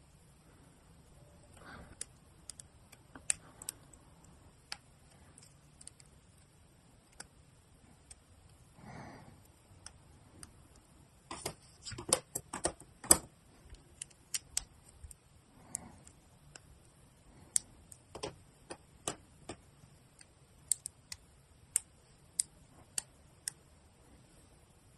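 Plastic Gunpla model-kit parts clicking as they are handled and pressed together, with scattered sharp clicks and a quick run of louder clicks about halfway through. Soft rustles of hands and parts on a cloth mat come in between.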